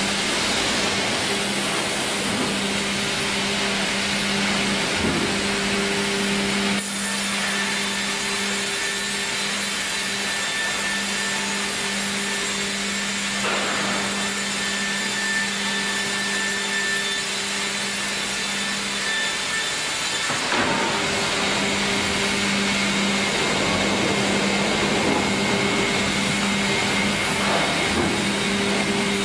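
Sawmill machinery running: a steady motor and hydraulic hum with a constant low tone under broad mechanical noise. The sound changes abruptly twice, about a quarter of the way in and again two-thirds through.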